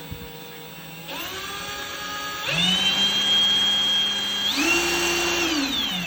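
Kobalt 24 V brushless impact wrench, fitted with a deep impact socket, spinning free with no load. Its motor whine starts about a second in and steps up in speed twice, then winds down near the end. The shaft is running with a wobble that the owner thinks excessive.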